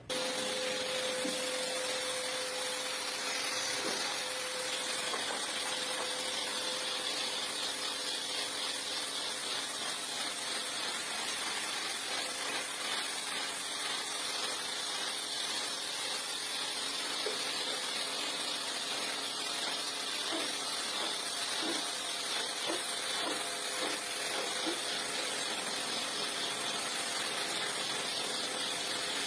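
Steady hiss of a pressure washer's water jet spraying across a rug, starting abruptly and running evenly throughout.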